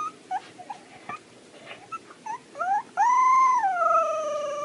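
Husky puppy giving a few short squeaky yips, then about three seconds in a long howl that holds its pitch and then slides down.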